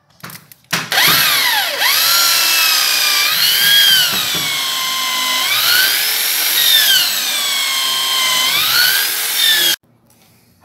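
Electric drill with a spade bit boring into a wooden board. After a couple of short trigger bursts, the motor runs steadily for about nine seconds, its whine dropping in pitch as the bit bites into the wood and climbing back as the load eases. It cuts off suddenly near the end.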